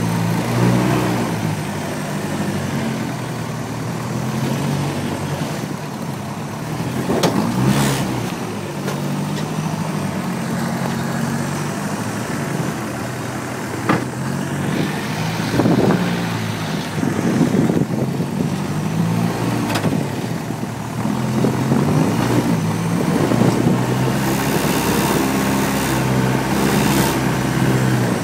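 Engine of a tube-frame rock-crawling buggy, heard from on board, running at low speed and rising and falling with the throttle as it crawls over boulders, with a few sharp knocks along the way.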